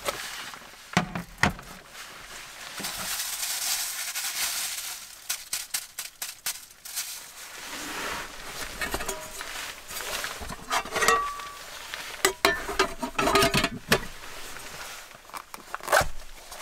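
Rustling of a gear bag and clothing, then metal cookware clinking and knocking as it is handled and set down, with short ringing tones from the struck pieces.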